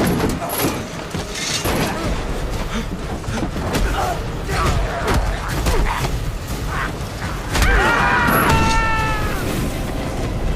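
Dense action-scene sound effects: clattering, thuds and crashes over a low rumble. Near the end there is a harsh cry whose pitch falls away.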